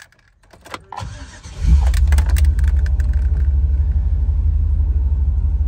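Keys clink in the ignition of a 2002 GMC Savana 3500 cargo van, then the starter cranks briefly and the engine catches about 1.7 seconds in and settles into a steady, loud idle.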